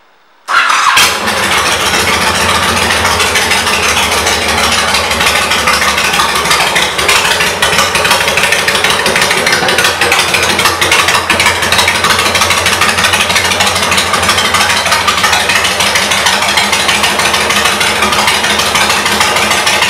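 2007 Honda VTX 1300C's V-twin, fitted with a full Cobra exhaust, fires up about half a second in and then idles steadily.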